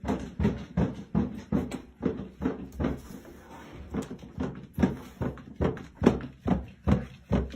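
A rapid series of knocking thuds, about four a second, easing off briefly about three seconds in before starting again.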